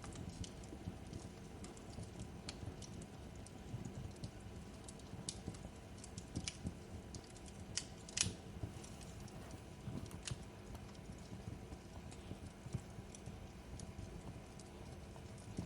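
Wood fire crackling: irregular snaps and pops over a low steady rumble, with one louder pop about eight seconds in.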